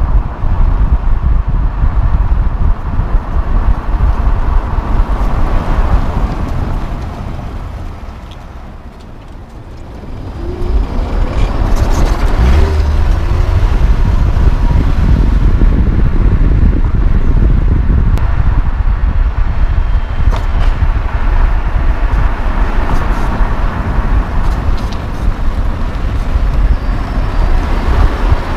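Loud wind buffeting on a microphone mounted beside a car's front wheel, mixed with tyre noise on pavement, as the 2009 Nissan Altima Hybrid drives along. The noise eases for a couple of seconds about a third of the way in, then comes back up.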